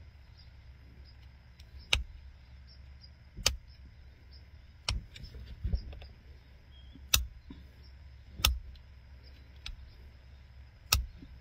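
Pressure flaking of a flint arrowhead: about seven sharp clicks, a second or so apart, each a small flake snapping off the edge of the European ballast flint as the pressure flaker is pushed against it.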